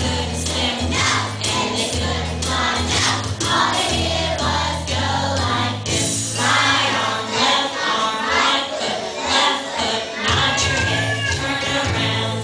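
Music with a group of voices singing over an instrumental backing with a steady bass line.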